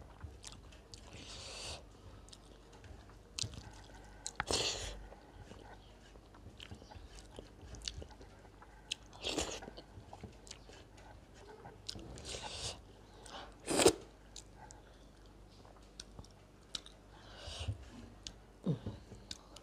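Close-up eating sounds: chewing a mouthful of food eaten by hand, with fingers scraping rice and dal off a steel plate. Short, irregular noises, a few of them louder than the rest.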